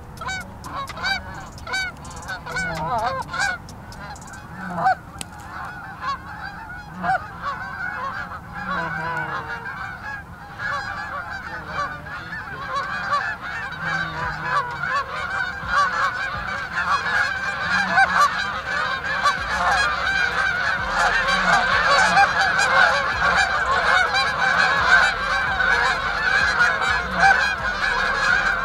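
A flock of Canada geese honking in flight: scattered honks at first, then a dense chorus of many birds that grows steadily louder from about ten seconds in as the flock comes closer.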